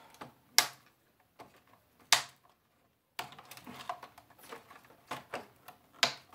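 Hands and a screwdriver working among wires and connectors inside an opened TV's plastic housing, making sharp plastic clicks and small taps. There are loud clicks about half a second and two seconds in, then a run of lighter clicks after a short pause, and another loud click near the end.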